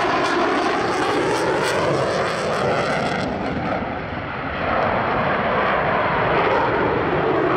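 Twin General Electric F404 jet engines of an F/A-18 Hornet fighter running hard in a display manoeuvre. A loud, steady jet noise with a sweeping shift in pitch over the first three seconds, easing briefly about four seconds in as the jet climbs away vertically, then loud again.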